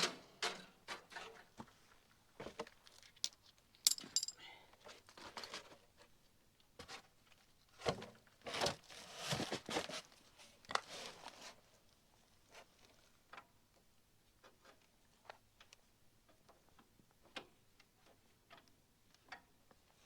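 Scattered clicks, light metal clinks and rustling from hands and tools working on an excavator, fitting a replacement AC hose. There are a few louder scraping, rustling stretches in the first half.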